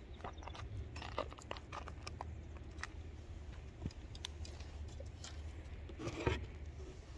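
Handling noise: scattered light clicks and rustling over a low steady rumble, with a louder rubbing rustle about six seconds in as a hand brushes over the phone.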